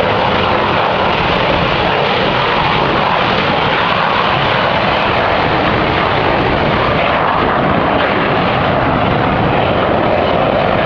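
Aircraft engines at an air show, a loud, steady roar that holds without letting up.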